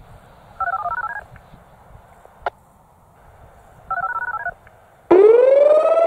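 Two short bursts of touch-tone (DTMF) signalling tones a few seconds apart, with a single click between them. About five seconds in, the Whelen WPS-2750 electronic siren starts, its tone rising quickly toward its steady 750 Hz alert pitch.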